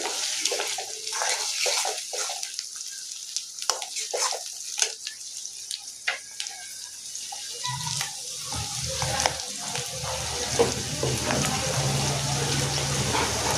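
Kitchen tap water running and splashing into a sink. There are scattered knocks and clinks at first, and from about eight seconds in the flow runs steadily with a low hum.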